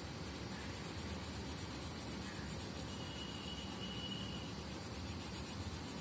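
Faint scratchy rubbing of a purple colour being worked back and forth over the paper of a colouring-book page, over a steady background hiss.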